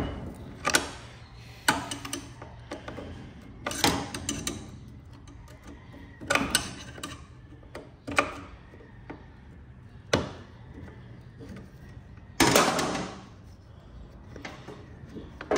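Flat-blade screwdriver working the screws out of a vintage chainsaw's metal recoil-starter housing: scattered sharp metal clicks and clinks, about seven, with a louder, longer rattle a little before the end.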